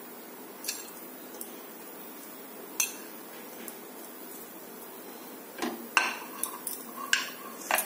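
Metal spoon clinking against a plate and a nonstick pan while dosa filling is spooned out: a few scattered clinks, then a quick run of knocks near the end, one of them ringing briefly.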